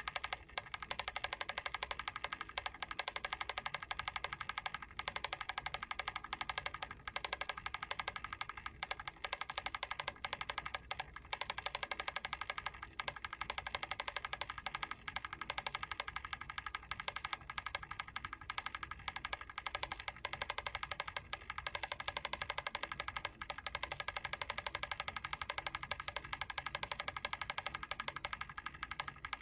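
Mechanical timer ticking: a rapid, steady run of clicks from its timing mechanism.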